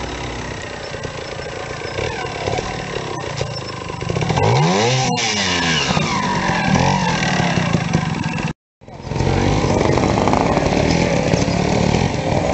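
Trials motorcycle engine running and revving in quick blips, the pitch rising and falling as the bike is worked over logs. The sound drops out for a moment about two-thirds through, then a motorcycle engine runs steadily again.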